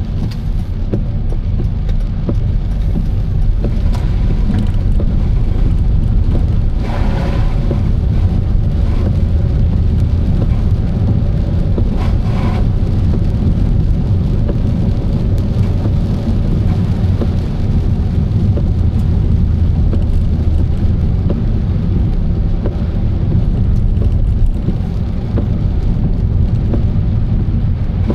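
Car driving in the rain: a steady low road-and-engine rumble with wet hiss and the patter of rain. Two brief swells of spray-like hiss come about seven and twelve seconds in.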